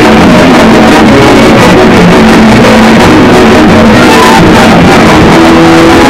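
Guitar-led theme music for an animated show's intro, played back harshly distorted and clipped, pinned at full loudness throughout.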